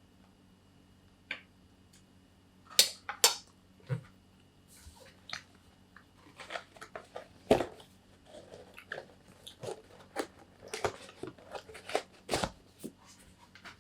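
A person biting and chewing food close to the microphone: irregular crisp crunches and mouth clicks, with a few louder bites about three seconds in, near the middle and near the end.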